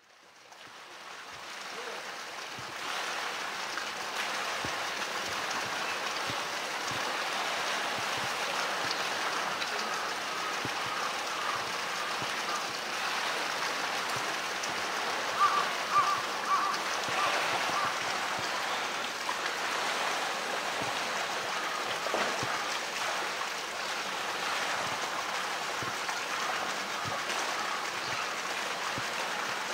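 Pool water sloshing and splashing steadily as a polar bear swims and pushes a floating blue plastic tank around. The sound fades in over the first few seconds, and a few short high chirps come about halfway through.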